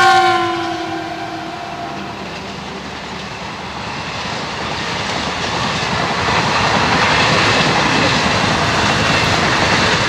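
The end of a WDM-2 diesel locomotive's horn, dropping in pitch as the locomotive passes and dying away in the first second or so. It is followed by passenger coaches rolling past, their wheels clattering on the rails in a steady rush that grows louder toward the end.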